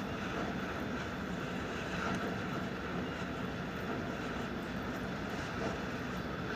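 Westinghouse split AC indoor unit running in heat mode, a steady even whoosh of its blower, while its iced-over coil thaws.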